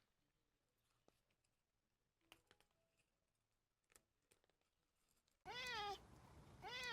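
A stray cat meowing twice near the end, each meow rising then falling in pitch, after several seconds of near silence with a few faint clicks.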